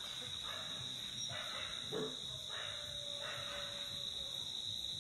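Steady high-pitched drone of night insects, with a few faint hushed noises and a small knock about two seconds in.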